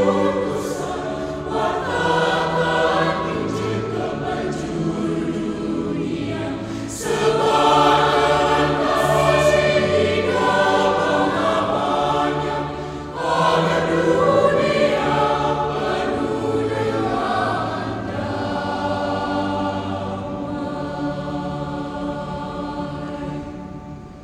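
Mixed choir of children and adults singing sustained chords in parts, swelling louder about seven and thirteen seconds in and fading away near the end.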